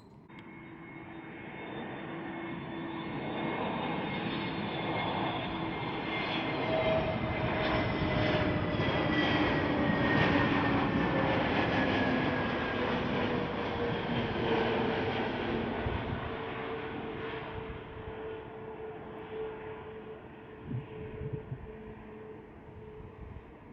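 Arriving airliner flying past, its engine sound swelling to a peak about ten seconds in and then fading. Its engine tones glide slowly down in pitch as it goes by.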